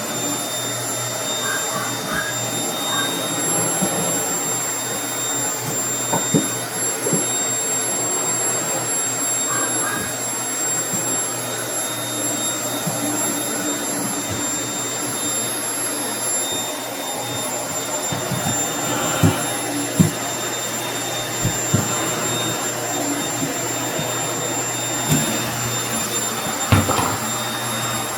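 Household vacuum cleaner running steadily on the floor, its motor giving a high whine, with short knocks now and then as the nozzle is pushed around, most of them in the second half.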